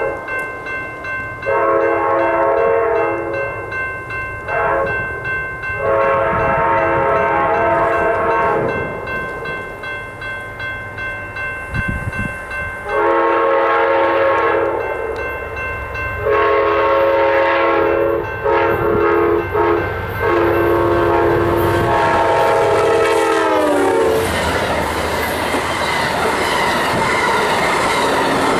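Multi-note air horn of a GE P42DC diesel locomotive leading a passenger train at speed, sounded in a string of short and long blasts, some broken into quick toots. On the last long blast the pitch drops as the locomotive passes, and the horn gives way to the roar and rail clatter of the train going by.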